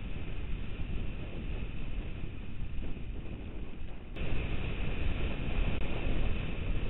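Motorcycle engine running under way on a dirt track, heard from a camera mounted on the bike, mixed with wind buffeting and tyre rumble on gravel. The sound jumps abruptly louder about four seconds in.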